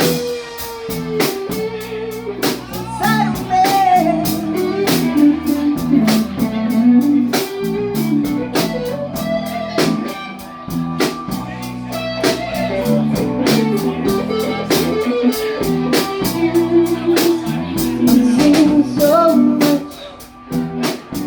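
Live blues-rock band playing an instrumental break: an electric guitar leads with bending notes over bass and a steady drum beat.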